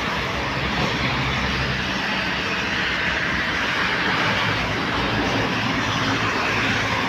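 Steady wash of heavy rain and road traffic, with a low engine hum underneath.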